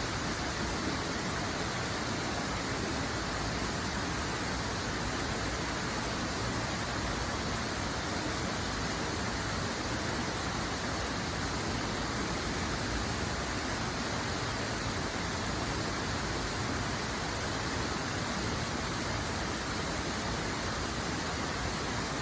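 Steady rushing water, an even unbroken hiss with no change throughout.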